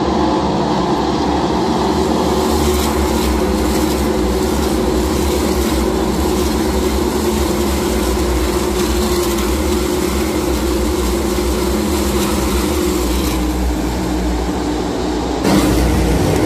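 Field of NASCAR stock cars with V8 engines droning steadily as they lap the track, with a sudden jump louder about a second before the end.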